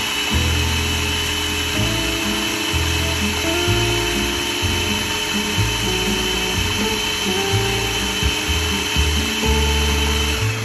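Small two-speed countertop food processor running steadily, pureeing boiled, peeled sweet potatoes, with a steady high motor whine. It stops suddenly near the end.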